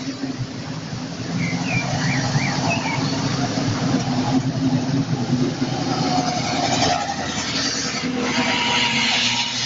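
Classic cars driving past one after another, their engines running at low speed, with tyres hissing on the wet road; the hiss swells as a car passes near the end.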